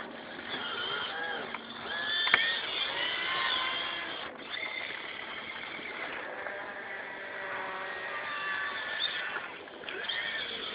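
Radio-controlled model excavator's small electric motors whining as the boom and bucket dig into gravel, the pitch rising and falling as each motion speeds up and slows. There is one sharp click a little over two seconds in.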